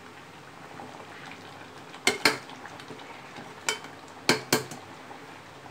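Steel ladle stirring a thick curry in an aluminium pressure cooker, clinking sharply against the pot five times, in two quick pairs with a single knock between, over a faint steady simmering sizzle.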